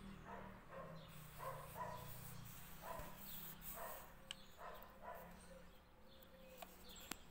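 Near-quiet room with a string of faint, short animal calls in the background, a few each second, and a few light clicks from the paper craft being handled.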